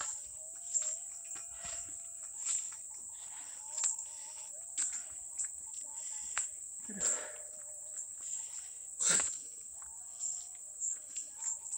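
Steady high-pitched insect drone from the surrounding forest, with footsteps crunching on dry leaves and twigs at roughly one step a second and a louder crunch about nine seconds in.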